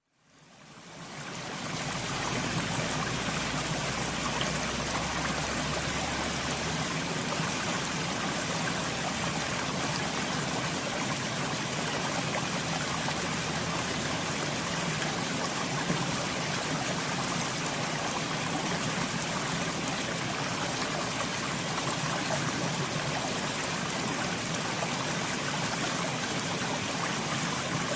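Waterfall water rushing and splashing as a steady, even noise, fading in over the first couple of seconds.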